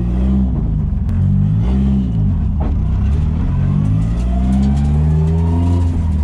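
Nissan SR20DET turbocharged four-cylinder heard from inside the car's stripped cabin under acceleration, the revs climbing and dropping several times, with a longer climb near the end.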